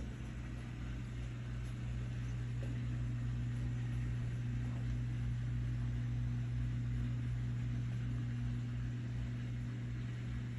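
Samsung Grande WF17N7510TP front-loading washing machine running, a steady low hum under an even whooshing noise.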